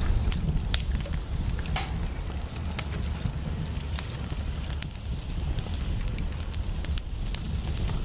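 Wood fire crackling in a fireplace: irregular sharp pops and snaps over a steady low rumble.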